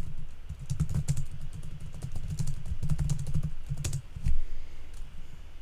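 Typing on a computer keyboard: a quick, uneven run of keystrokes that stops about four seconds in.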